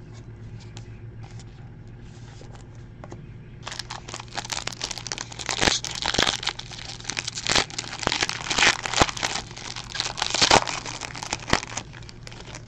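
Foil card-pack wrapper being torn open and crinkled by hand: a few faint ticks, then from about four seconds in a dense run of crinkling and tearing with sharp clicks.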